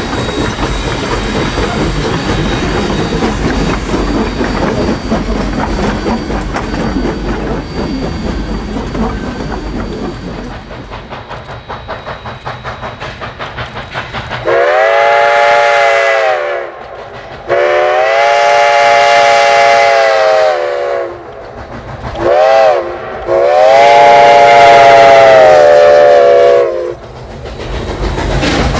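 Steam train with locomotives Rio Grande 464 and Alaska Railroad 152 passing close, its coach wheels clattering over the rail joints. Then an approaching steam locomotive chuffs and blows its whistle in two long blasts, one short and one long, the grade-crossing signal, before its running noise swells again near the end.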